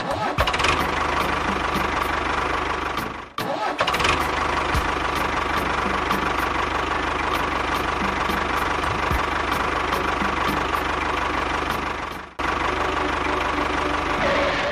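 Tractor engine running with a steady knocking beat, about three strokes a second. It breaks off briefly and resumes twice.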